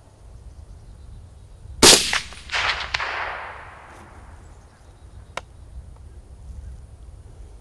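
A single suppressed shot from a Springfield M1A in .308 Winchester fitted with an AAC SDN-6 suppressor, about two seconds in, followed by a fading rolling echo across the range. A single sharp click comes a few seconds later.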